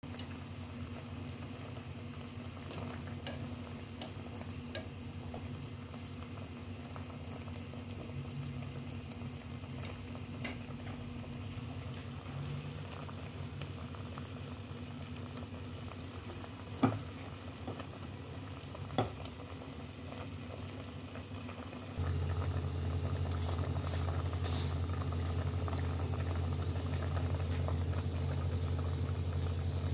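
Tomato broth with fried fish simmering in a pot, bubbling steadily, with two sharp clicks about two seconds apart past the middle. About three quarters of the way through, a low steady hum comes in and stays.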